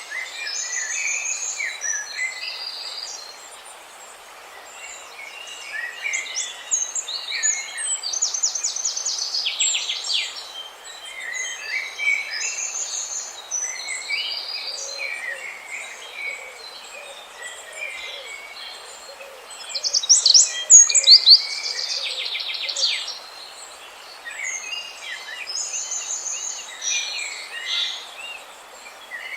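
Several small birds chirping and calling, with two bursts of rapid trills, one about a third of the way in and a louder one about two-thirds through, over a steady hiss.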